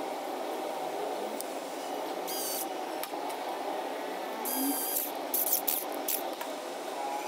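Cordless electric screwdriver whirring in a few short high-pitched bursts, once about two and a half seconds in and again from about four and a half seconds, driving screws into the plastic gear plate on a small DC drill motor. A steady low hum runs underneath.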